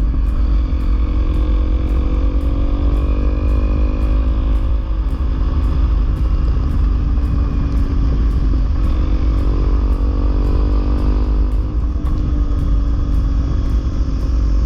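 Honda CRF250L single-cylinder trail bike engine running under way, its note dipping and then climbing again as the throttle changes, over a heavy low rumble.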